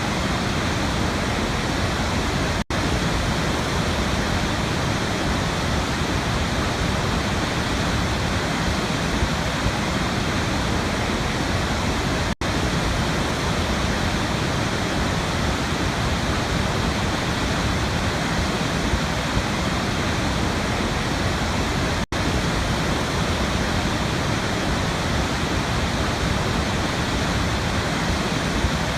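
Waterfall: a steady, dense rush of falling water, broken by three split-second dropouts about every ten seconds.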